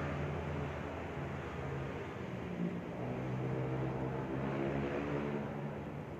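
Low, steady mechanical hum of a motor, swelling slightly in the second half.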